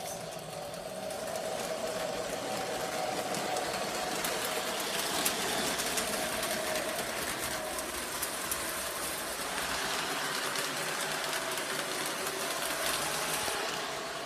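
Model diesel locomotive pulling freight cars around a layout: a steady electric-motor whine with the fine clatter of wheels running over the track.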